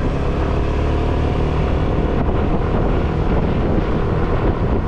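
Yamaha automatic scooter's engine running steadily while being ridden along at road speed.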